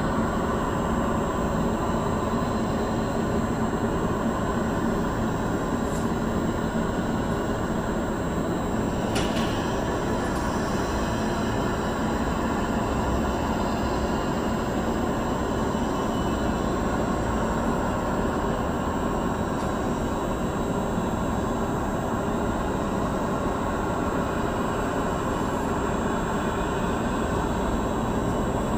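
Steady rumble of jet aircraft noise with a thin, high, steady whine from an Airbus A320 under pushback by a tow tug. Two faint clicks come about six and nine seconds in.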